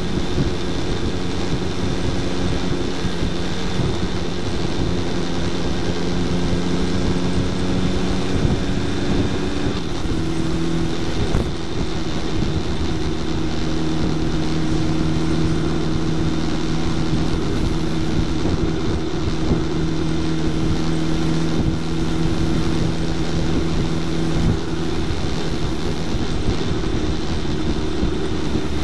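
Suzuki Hayabusa's inline-four engine running steadily while cruising, heard close up from the fairing with wind and road noise. About ten seconds in, the engine note steps down to a lower pitch and then holds steady.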